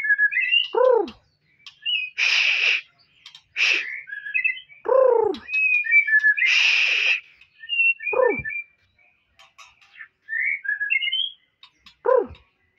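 White-rumped shama (murai batu) calling: quick chirps and short trills, three harsh rasping calls about half a second long, and four loud whistled notes that slide steeply downward.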